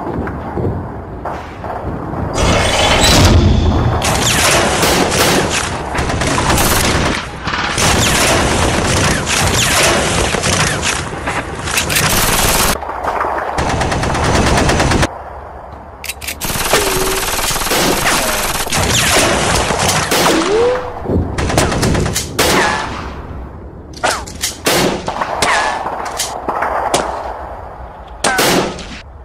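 Film gunfire: long runs of rapid, automatic-sounding shots with a short lull about halfway through.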